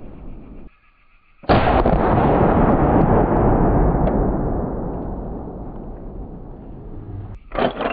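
Henry lever-action .45-70 rifle firing one shot about one and a half seconds in: a sudden loud blast that rolls on and fades over several seconds. A short sharp clack with a faint ringing follows near the end.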